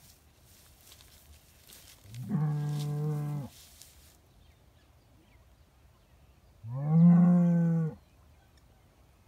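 Red Devon cattle mooing: two long moos about four seconds apart, each holding a steady low pitch, the second one louder.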